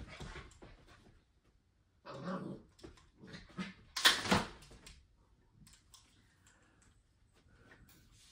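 Doodle puppy barking in three short bursts about two, three and four seconds in, the last the loudest, followed by faint clicks and rustling.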